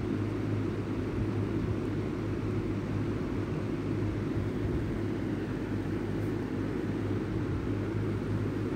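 A steady low rumbling hum with no speech, strongest in the bass, holding unchanged throughout.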